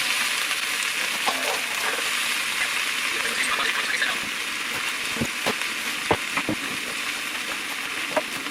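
Onions and bell peppers sizzling as they fry in a pan, a steady hiss. A few short knocks come in the second half.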